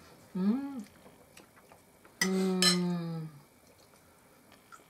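A person's voice making two non-word sounds: a brief hum that rises and falls in pitch, then a louder drawn-out one about a second long that sags slightly at the end. Faint clinks of spoons against soup plates fall between them.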